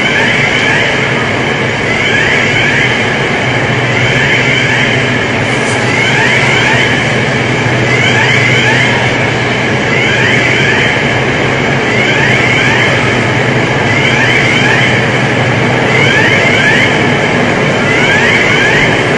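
A fire alarm sounding in repeated short groups of rising electronic sweeps, about one group every two seconds, over a loud, steady rushing noise and a low hum.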